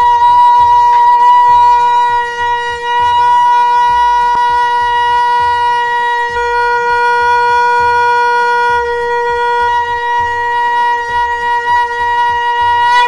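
A conch shell blown with buzzing lips, sounding one long, steady, horn-like note that is held throughout, dips briefly in loudness about two and a half seconds in, and stops abruptly at the very end.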